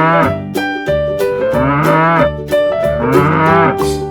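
Cow mooing about three times over upbeat children's background music with a steady beat.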